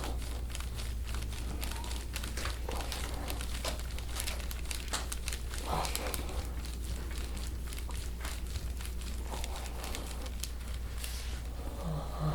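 Irregular crinkling and rustling from hands-on deep-tissue pressure worked into a patient's back muscles, with many small crackles throughout. A steady low hum runs underneath.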